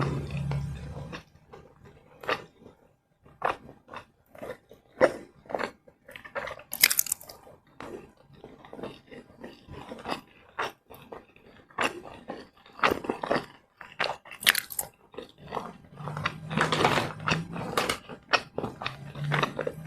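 A person eating close to the microphone: irregular crunching bites and chewing, with a denser run of crunches near the end.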